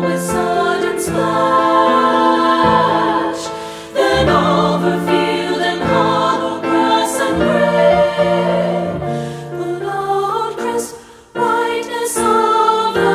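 Women's choir (SSA) singing with piano accompaniment, the held voices wavering with vibrato. The music breaks off briefly twice between phrases, about four seconds in and near eleven seconds.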